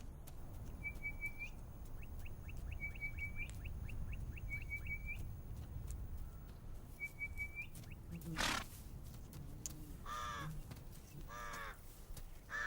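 Wild birds calling: short, high chirping phrases repeated every second or so, then from about ten seconds in a louder, harsher call repeated roughly once a second. A brief burst of noise comes about eight seconds in, over a low outdoor rumble.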